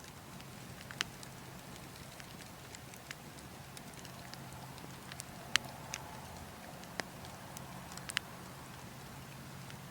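Burning logs crackling, with a handful of sharp, irregular pops over a steady background of wind.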